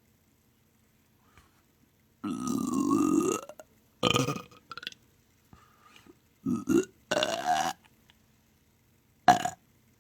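A person burping loudly: one long burp about two seconds in, followed by several shorter burps.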